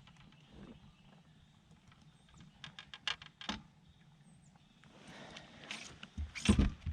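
Handling noise around a just-landed striped bass: scattered light taps and clicks in the middle, then one loud thump near the end.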